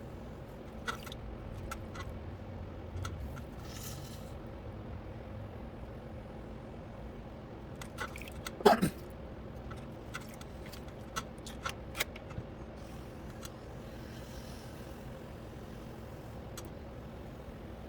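Electric pottery wheel running with a steady hum while clay is worked, with scattered small clicks and a short scraping squeak that falls in pitch about nine seconds in.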